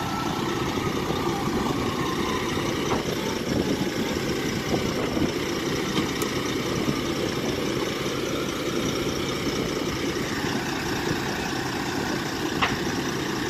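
Fire engine's diesel engine running steadily while it pumps water to the hoses laid out from it. A single sharp click near the end.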